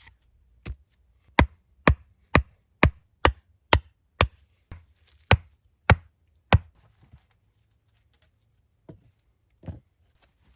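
Axe chopping wood: about a dozen sharp strikes at roughly two a second, then a pause and two lighter strikes near the end.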